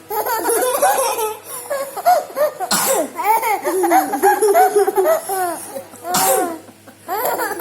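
A young child laughing in rapid, high-pitched bursts, set off by an older child's coughs: two sharp coughs break in about three seconds in and again about six seconds in.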